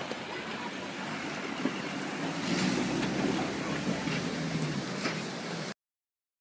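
A bus engine running while water rushes and splashes around the wheels as the bus fords a shallow, muddy river. The sound gets louder about two and a half seconds in, then cuts off suddenly near the end.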